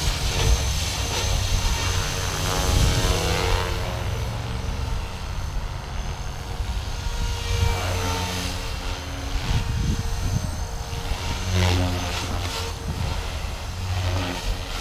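Blade 330 S electric RC helicopter flying in its Stunt 2 flight mode: a steady rotor buzz with a motor-and-rotor whine that dips and rises in pitch several times through the manoeuvres.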